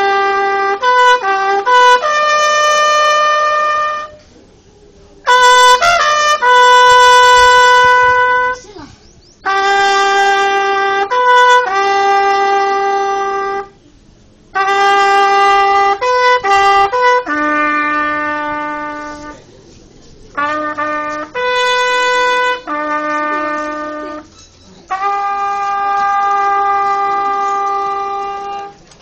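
Solo trumpet playing a slow funeral bugle call: each phrase runs a few short notes up into a long held note, with brief breaks between phrases.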